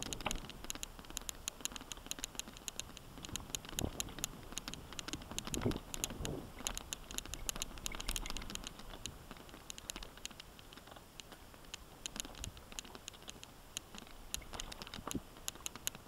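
Mountain bike riding over a rough dirt single track: dense, irregular rattling and clicking from the bike and its tyres on stones and dirt, with a few dull thumps over bumps.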